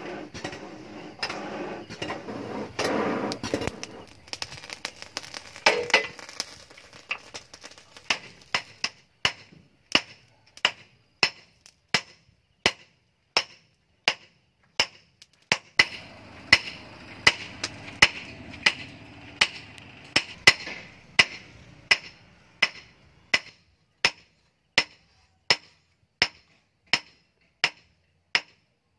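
Hand hammer forging a red-hot steel knife blank on a steel post anvil: steady blows about one and a half a second, each a sharp metallic clank with a short ring. A rushing noise sits under the blows in the first few seconds.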